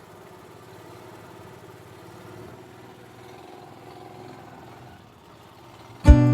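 Long-tail boat engine running steadily and faintly. Strummed acoustic guitar music starts abruptly just before the end.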